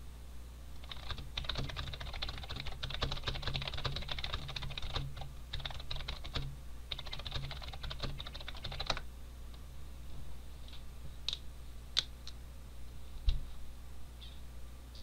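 Typing on a computer keyboard: a fast run of key clicks for about eight seconds, then a few scattered keystrokes, over a low steady hum. There is a single dull thump near the end.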